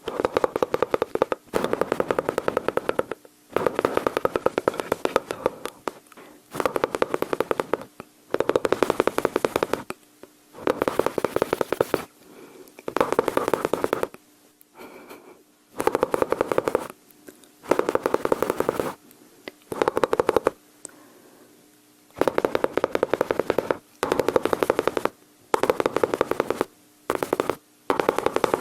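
Mouth sounds imitating machine-gun fire: bursts of rapid rattling clicks, each about a second long, repeated over and over with short pauses between them.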